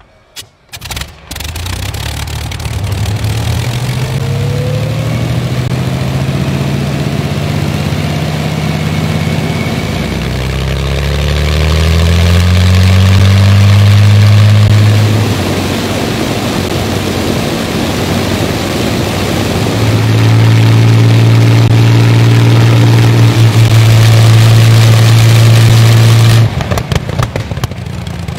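Rolls-Royce Merlin Mark 22 V12 aero engine running with its propeller turning. A few sharp pops come about half a second in, then it runs steadily. Its pitch rises and it grows louder around twelve seconds in, falls back, and rises again from about twenty seconds in, before the sound cuts off suddenly near the end.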